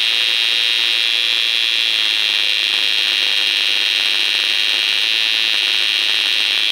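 Homemade transistor-and-transformer fishing-machine inverter running under a 200-watt bulb load, giving off a steady high-pitched whine.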